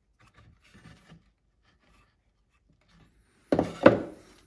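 A small spatula scraping softly as it smooths body filler into the neck joint of a wooden decoy, then a louder scraping and rubbing for about a second near the end.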